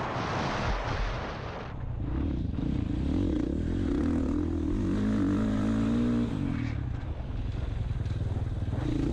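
Dirt bike engine heard from the rider's helmet. Wind and engine noise at speed drop away about two seconds in as the throttle is shut for a turn. The engine then pulls steadily through the corner and speeds up again near the end.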